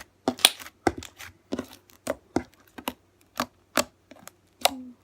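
Handmade slime being squeezed and poked, making a run of sharp, irregular clicking pops, about two or three a second.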